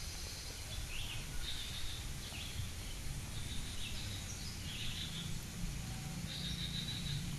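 Short, high chirping animal calls repeating every second or so, over a steady low outdoor rumble.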